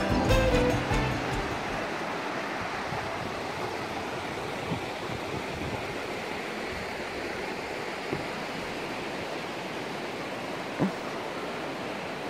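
A shallow, rocky mountain river rushing steadily, a continuous hiss of running water. A few soft knocks sound over it, the clearest near the end. The tail of a music track fades out in the first second.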